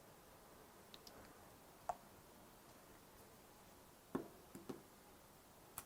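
Near silence broken by a handful of short faint taps and clicks, the loudest about two seconds in and just after four seconds.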